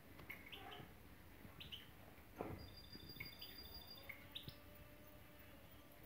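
Faint, scattered short chirps and thin trilled notes from caged European goldfinches, with a brief rustle about two and a half seconds in.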